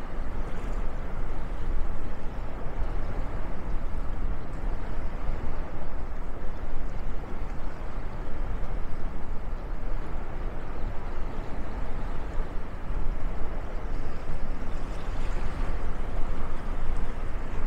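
Steady outdoor rushing noise, heaviest in the low end, with a constantly flickering level and no clear events.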